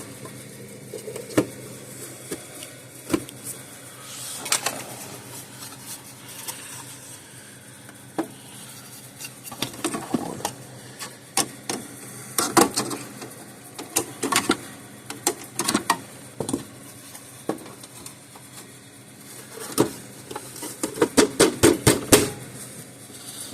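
Irregular clicks, taps and clatter of a plastic electric fence charger case being handled and closed up with its screws, with a quick run of clicks near the end.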